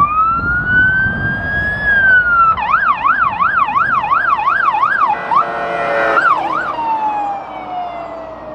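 Electronic emergency siren on a fire brush truck. It starts on a slow rising wail, then switches to a fast yelp for about three seconds, gives a short horn-like blast, yelps twice more, and winds down in a long falling wail.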